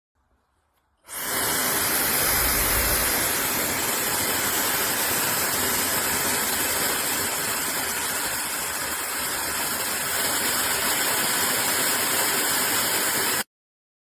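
Hair dryer blowing at a steady setting: a loud, even rush of air with a faint high motor whine, switching on about a second in and cutting off sharply near the end.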